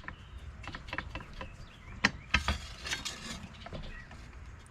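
Handling noise at a workbench: irregular light clicks and taps, with a short rustling scrape about two and a half seconds in.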